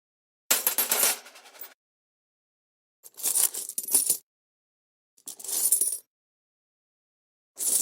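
Metal coins clinking and jingling in four separate short bursts, each about a second long, with dead silence between them.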